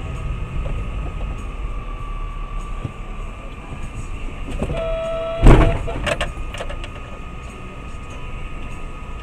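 Vehicle collision caught on a dash cam: steady road and engine rumble, a short steady tone, then a loud crash impact about five and a half seconds in, followed by a few smaller knocks and rattles.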